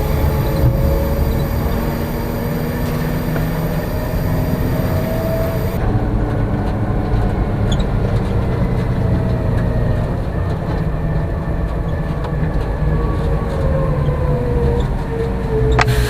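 Concrete mixer truck's Caterpillar C13 diesel engine and drivetrain running on the road, heard from inside the cab, with a slow whine that rises and falls as the truck changes speed. A high hiss drops away about six seconds in and returns with a click near the end.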